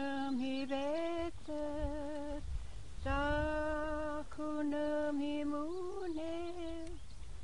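A woman singing unaccompanied in long, slowly held notes, in phrases of a second or two with short breaks between them. A low wind rumble on the microphone runs underneath.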